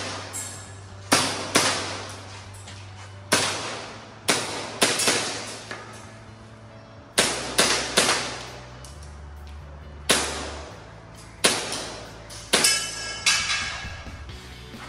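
Airsoft pistol shots, about fifteen in quick strings of one to four, each a sharp crack with a short ring, fired through an IPSC Action Air stage. Background music with low, steady bass notes plays underneath.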